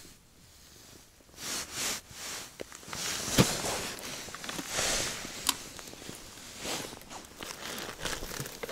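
Rustling of a winter jacket and gloves and crunching of boots on snow-covered ice as the fisherman shifts about, with several crunches and a sharp knock about three and a half seconds in.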